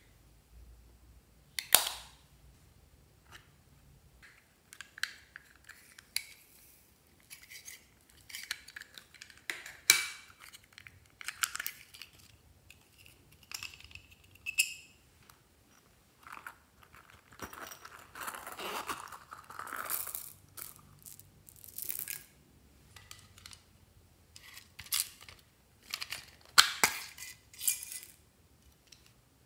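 Hands handling and opening small plastic cosmetic cases, with a series of sharp plastic clicks and taps, a few much louder than the rest. A longer stretch of rustling comes about two-thirds of the way through as toppings are tipped out.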